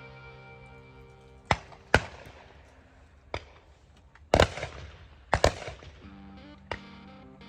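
Shotgun fire: several loud sharp shots at uneven spacing, two of them in quick succession about halfway through, with a couple of fainter, more distant shots between, over steady background music.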